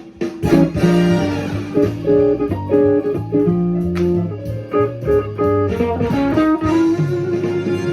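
Electric guitar playing a run of jazz notes without pause, the intro section of a big-band tune.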